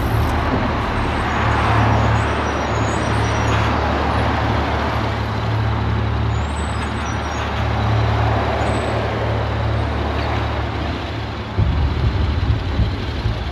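Motorcycle engine running at low speed with road and wind noise. About eleven and a half seconds in, the engine sound turns louder and choppier.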